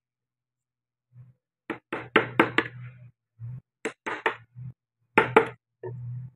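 Sharp wooden taps and knocks in three quick clusters of a few strikes each, typical of hand carving tools working or being set down on a wood carving, with a low steady hum between them.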